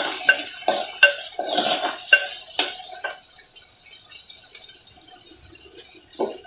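Sprouts, garlic and green chillies sizzling in hot oil in a pot, with a steel spoon stirring and clicking against the pot several times in the first three seconds, then steady frying.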